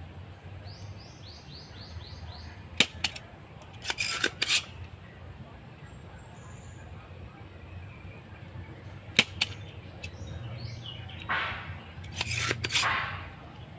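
Spring-loaded desoldering pump (solder sucker) firing on a circuit board's solder joints: several sharp snaps as the plunger is released, some in quick pairs, with short rasping sounds near the end as the plunger is pushed back down to cock it.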